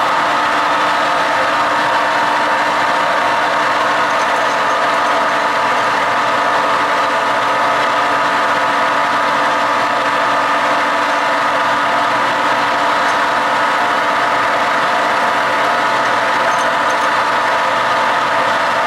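Metal lathe running at a steady speed: an even machine hum with several steady tones.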